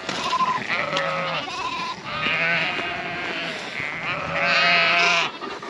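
A mob of ewes and lambs bleating: several overlapping calls, deep and high, one after another, the loudest near the end.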